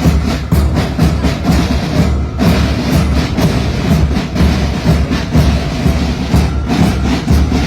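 A ghosh marching band playing a steady, driving drum rhythm, with sharp drum strokes over deep bass-drum beats. The playing breaks off briefly about two seconds in and again near the end.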